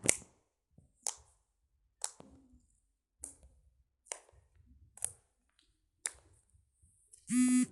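A series of sharp, short taps or clicks, about one a second. Near the end a loud buzzy beep starts.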